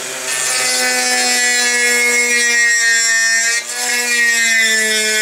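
Dremel rotary tool on a flexible shaft running at a medium speed setting, its wood side-cutting bit routing into the wooden nose of a model airplane. The motor whine is steady and dips briefly about three and a half seconds in.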